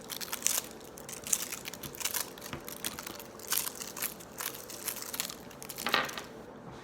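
Crunching a wintergreen (wint-o-green) candy cane between the teeth: a run of irregular sharp cracks, with a louder one near the end.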